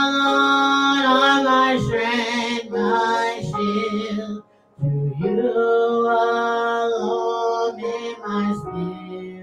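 A worship hymn sung with accompaniment: long held notes that slide up into pitch, with a short break about four and a half seconds in.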